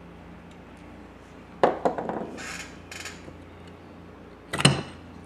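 Small metal carburetor parts and hand tools handled on a workbench: a clatter of clinks about a second and a half in, a short scraping sound, then one sharp knock, the loudest, near the end.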